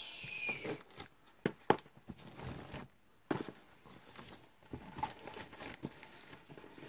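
Small cardboard boxes being opened and handled: scattered rustles, scrapes and light knocks, with a short falling squeak of cardboard right at the start.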